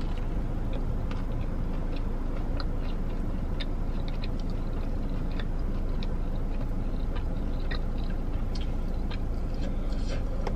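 A person chewing a mouthful of burger close to the microphone, with faint soft mouth clicks scattered through, over a steady low hum.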